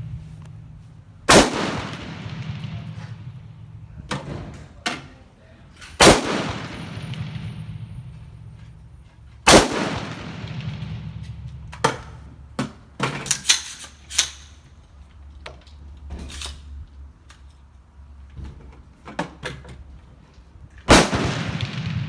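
Smith & Wesson M&P15 Sport II AR-15 rifle in .223/5.56 firing single shots: four loud reports several seconds apart, each trailing off in a long echo, with fainter sharp cracks and knocks between them.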